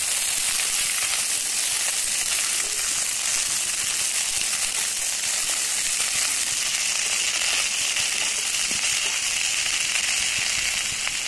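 Sliced pointed gourd frying in hot mustard oil in a non-stick kadai: a steady sizzle with a fine crackle as the pieces are stirred with a wooden spatula.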